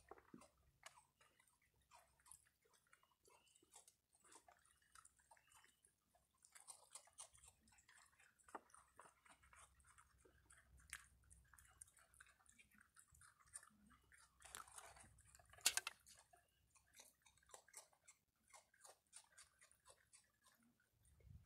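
Raccoon chewing and crunching food close by: a faint, irregular run of small crunches and clicks, with one sharper click about three-quarters of the way through.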